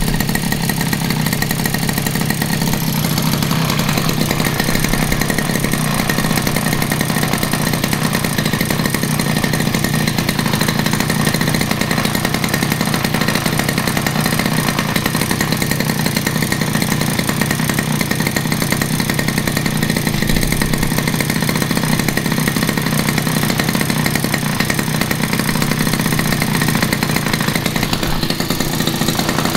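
Small brush-cutter engine fitted with a mini chainsaw carburettor, running steadily at an even speed. It is running normally on the swapped-in carburettor.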